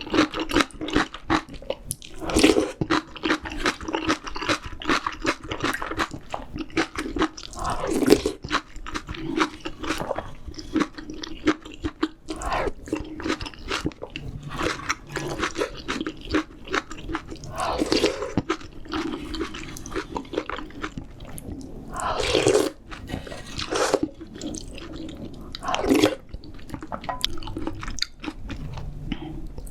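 Close-miked eating sounds of spicy seafood ramyeon: steady chewing and crunching with irregular bites, and a few louder, longer sounds about 2, 8, 18, 22 and 26 seconds in.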